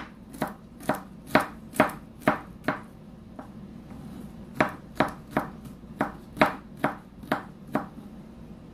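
Kitchen knife slicing peeled garlic cloves on a wooden cutting board, the blade knocking on the board about twice a second. The knocks pause for about a second and a half midway, then resume.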